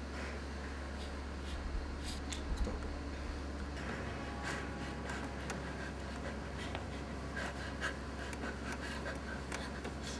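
Quiet room tone: a steady low hum with faint, scattered rustles and small clicks from a performer moving about.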